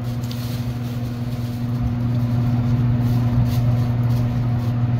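Burger patty and egg patties frying on a flat-top griddle, with light sizzling over a steady low mechanical hum that gets slightly louder about two seconds in.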